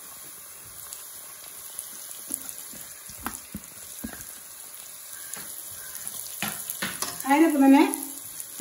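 Shredded cabbage and onions sizzling in hot oil in a wok, with a few sharp clicks of a wooden spatula against the pan as it is stirred. A voice speaks briefly near the end.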